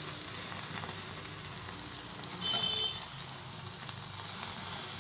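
Steady hiss of an open gas-stove flame, with marinated cauliflower florets sizzling as they roast on skewers over it. There are faint clicks as the metal skewers are turned, and a brief high-pitched tone about halfway through.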